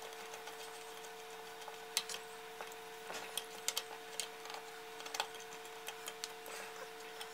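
Scattered light clicks and ticks of hands handling the wires and small parts on top of a vintage electric edger motor, over a faint steady hum.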